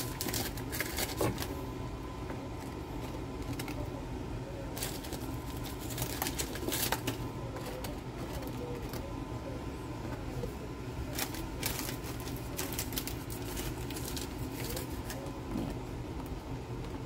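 Graham crackers being set down into a plastic tub, giving scattered light taps and clicks in a few clusters over a steady low hum.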